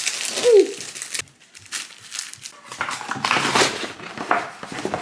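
Packaging being handled during unboxing: crinkling and rustling of wrapping, strongest in the second half. A brief falling vocal sound comes about half a second in.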